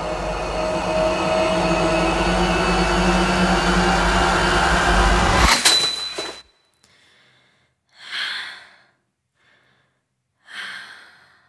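A loud, dense suspense-music drone with held tones and a low rumble, swelling slightly and ending in a sharp hit about five and a half seconds in. It is followed by near quiet broken by a woman's two heavy breaths out, about two and a half seconds apart.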